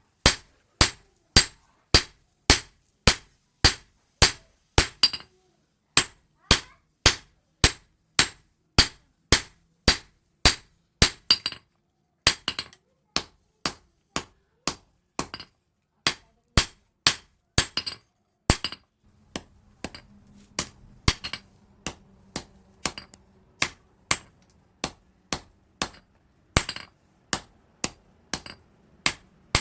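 Hand hammer striking leaf-spring steel on an anvil in a steady rhythm, about two blows a second, each with a bright ringing edge. There is a brief pause about five seconds in, and a faint low hum joins about two-thirds of the way through.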